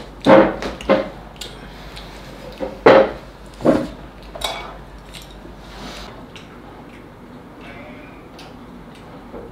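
Chopsticks and porcelain rice bowls clinking and knocking against each other and the wooden table as two people eat. There are four louder knocks in the first four seconds, then lighter, scattered clicks.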